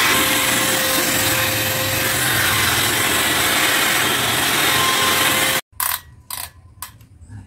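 The coffee roaster's cooling-tray fan running with a steady rush, a wooden paddle scraping over the perforated metal tray. It stops suddenly about five and a half seconds in, and a few sharp clicks follow.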